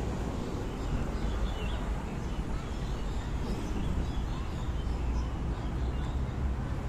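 Outdoor city-park ambience: a steady low rumble with faint, scattered bird chirps.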